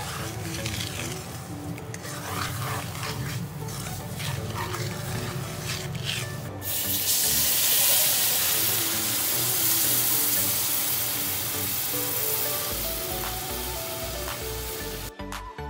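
A spatula scraping and stirring semolina roasting in ghee in a nonstick pan, then a sudden loud sizzling hiss as sugar syrup is poured onto the hot roasted semolina, lasting until it cuts off near the end. Background music plays throughout.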